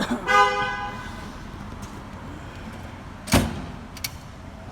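Tools and drawers being handled in a toolbox: a short pitched squeal at the start, then one sharp knock a little over three seconds in and a smaller click just after.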